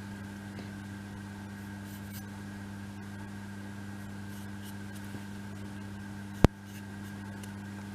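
Steady low electrical hum with faint taps and rubs of small laser-cut wooden kit pieces being handled and glued, and one sharp click about six and a half seconds in.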